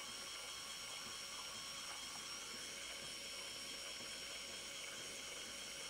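Small GA25-370 DC gear motor running steadily with a high whine, turning a filament spool on a 3D-printed tumbler frame.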